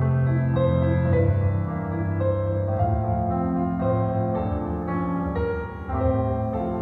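Solo piano music playing a ballet class accompaniment for a barre exercise.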